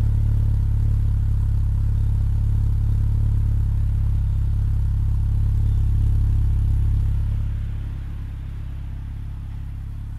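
Mercedes-Benz W202's M111 inline four-cylinder engine idling steadily through a C36 AMG rear muffler, heard at the twin tailpipes, with a deep, even exhaust note shortly after a cold start. The sound drops noticeably about seven and a half seconds in.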